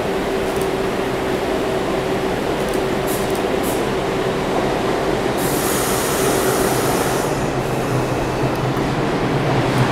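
R142 subway train pulling into the station, its steady running rumble and hum filling the platform, with a few clicks from the wheels about three seconds in and a high hiss for about two seconds midway as it slows alongside the platform.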